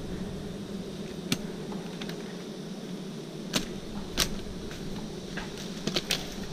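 Steady low buzzing of a giant honeybee swarm, with several sharp clicks or snaps over it, the loudest about three and a half and four seconds in.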